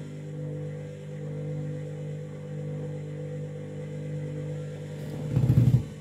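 Candy front-loading washing machine's motor running with a steady hum as the drum turns a wet, unbalanced load, trying to settle it for the spin. About five seconds in, a loud rattling knock lasts under a second.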